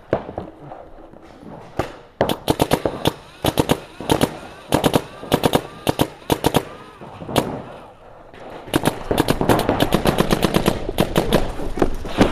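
Electronic paintball markers firing reball rubber balls in rapid strings of sharp pops, several guns going at once, with a brief lull partway through.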